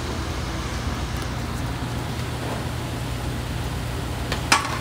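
Steady rushing noise with a low hum from a commercial kitchen's ventilation and gas range. Near the end, metal tongs clink a few times against a stainless-steel pan of pasta.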